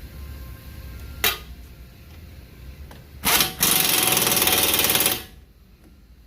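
Power impact wrench briefly blipped once, then hammering for about two seconds as it drives in a hub mounting bolt.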